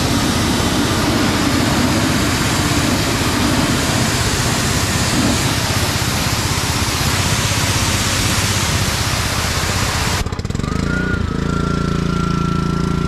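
Pressure washer spraying water through the gun with a steady hiss over the machine's running motor. About ten seconds in the spray stops, and the machine keeps running with a steady hum that briefly rises in pitch.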